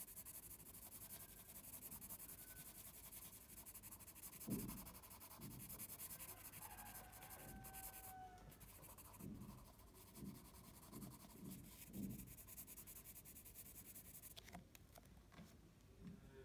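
Faint scratching of a graphite pencil on paper in quick, dense shading strokes, stopping about a second and a half before the end, with a few soft low thumps in the middle.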